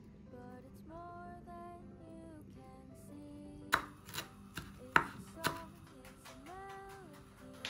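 Chef's knife chopping basil and Italian parsley on a wooden cutting board: about five sharp chops starting about halfway through, over background music.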